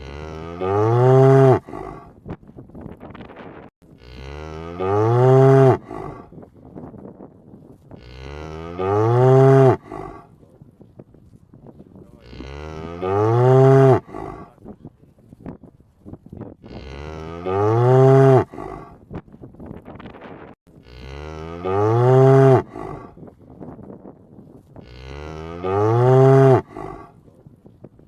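A cow mooing over and over: seven identical long moos, about four seconds apart, each rising and then falling in pitch. Faint crackling noise fills the gaps between them.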